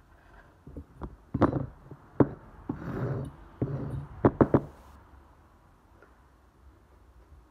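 Sharp knocks and clacks of tools and a plastic model dog head handled on a grooming table: one about a second and a half in, another near two seconds, and a quick run of three a little past four seconds. Between them is a rustling brushing sound as loose cut hair is swept off the table by hand.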